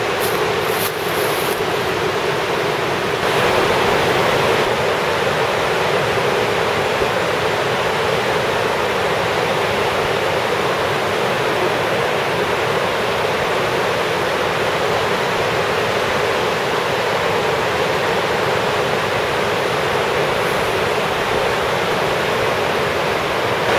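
Steady, loud rush of the fast-flowing Niagara River rapids.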